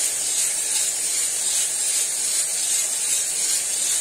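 Cormorant CR600 electric drum coffee roaster running shortly after the beans are charged, its fan and drum giving a steady airy hiss.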